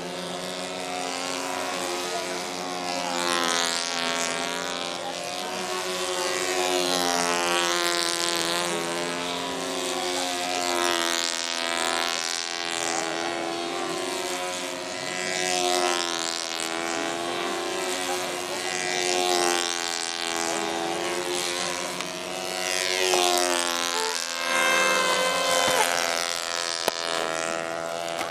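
Small engines of several radio-controlled model biplanes buzzing overhead at once. Their pitches rise and fall, and the sound swells and fades as the planes circle and dive.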